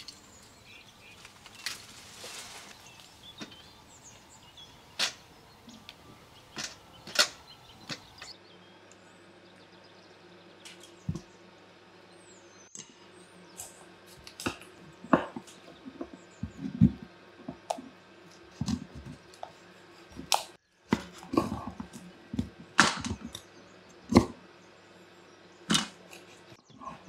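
Pomegranates being snapped off the tree among rustling branches, with scattered sharp snaps. Then, from about eight seconds in, heavy kitchen knives chopping whole raw chickens on wooden cutting boards: irregular sharp knocks and cracks of blade through bone onto wood.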